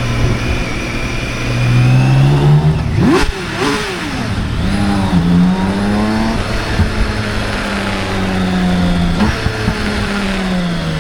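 BMW K1600's inline-six engine running under way: the pitch climbs as it accelerates, dips briefly about three seconds in, climbs again and holds steady, then falls away near the end as it slows.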